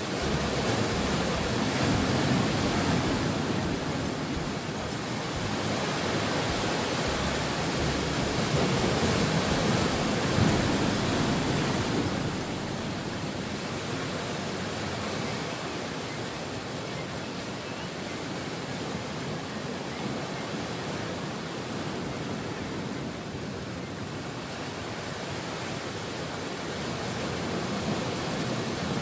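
Sea surf: a steady rushing wash of waves, swelling louder a couple of times over the first dozen seconds, then settling into a steadier, slightly quieter rush.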